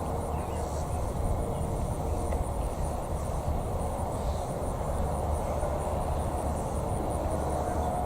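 Insects chirping in a fast, even, high pulse over a steady low rumble. A faint steady tone from a distant Federal Signal 2001 tornado siren fades out just after the start and returns near the end.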